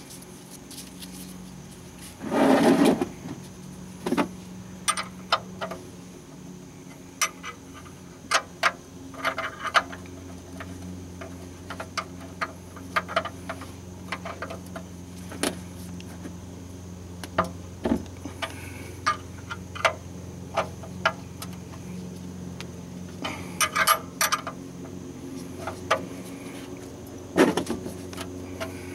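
Metal clicks and clinks of a combination wrench on the oil-pan drain plug as it is worked loose, with a longer, louder clatter about two and a half seconds in.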